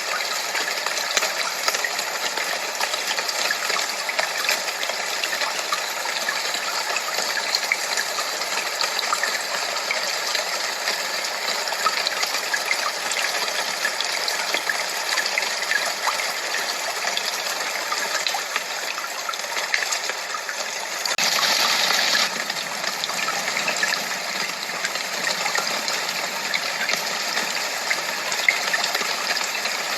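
Steady rushing noise of gushing water, even and unbroken, with a short louder surge about 21 seconds in.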